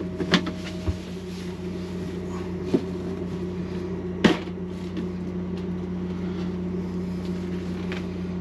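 The plastic lid and hinged top of an OGO composting toilet being handled: a few light knocks and one sharp click about four seconds in, over a steady low hum.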